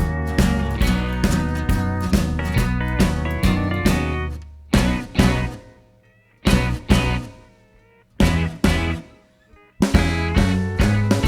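Background music with guitar and a steady beat. About four and a half seconds in, it breaks down to a few separate hits and chords with gaps between them. The full music returns near the end.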